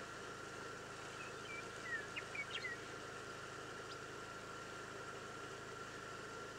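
Steady hum of an idling car engine. About one to three seconds in come a handful of quick bird chirps.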